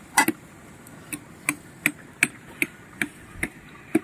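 Even, regular ticking, about three ticks a second.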